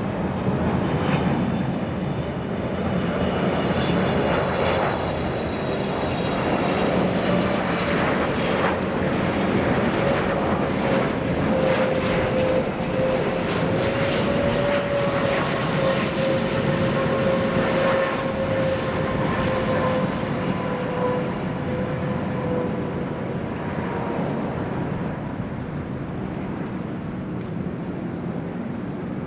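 Saudia Boeing 777-300ER's twin GE90-115B turbofans running at approach power as the jet passes low on final and flares to land: a steady jet rush with a whine that drops slightly in pitch through the middle, fading a little toward the end.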